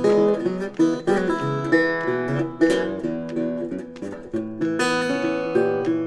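Background music: acoustic guitar playing plucked and strummed chords at a steady pace.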